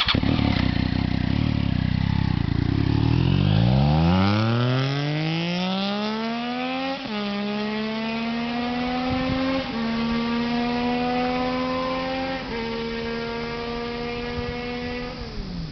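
Triumph Daytona 675's three-cylinder engine through a Jardine RT1 dual-outlet exhaust: a low rumble at first, then revving up steadily for a few seconds before three quick upshifts, each a sudden dip in pitch. The revs drop off near the end.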